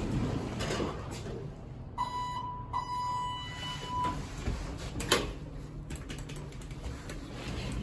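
Elevator's electronic beep, a steady high tone held for about two seconds with a brief break, then a sharp knock about five seconds in.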